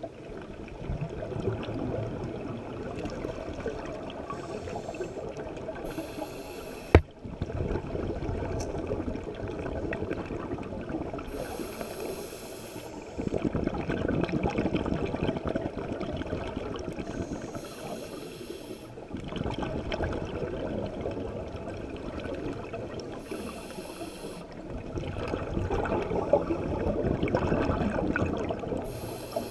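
Scuba diver breathing underwater through a regulator. A hiss of inhalation comes about every six seconds, and each is followed by the low bubbling rush of exhaled air. A single sharp knock about seven seconds in.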